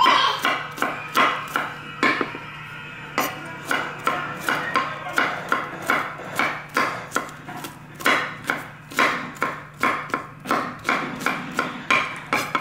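Chef's knife mincing garlic cloves on a wooden cutting board: a steady run of knocks on the wood, about two to three a second.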